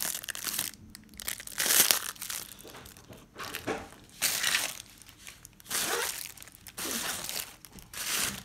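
Toy packaging crinkling and tearing in irregular bursts as it is handled and pulled open.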